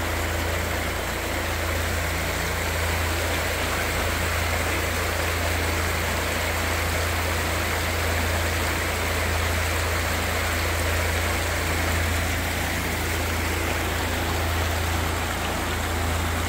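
Small rocky mountain creek rushing and splashing over stones: a steady, loud rush of water with a low rumble underneath.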